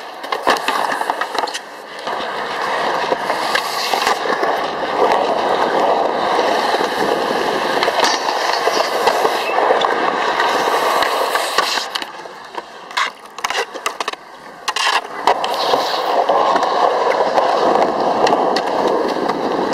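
Skateboard wheels rolling on concrete, with the sharp clacks of board pops and landings. The rolling drops out for a few seconds past the middle, where several separate clacks sound, then picks up again.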